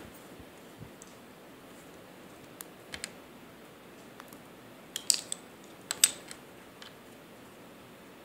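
Plastic Lego bricks being pulled apart by hand: scattered small clicks and snaps, the sharpest about five and six seconds in.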